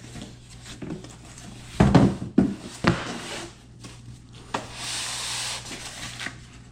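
Heavy ring-and-pinion gear set being handled in its packaging: a cluster of knocks and thumps, then a scraping rustle about a second long just past the middle.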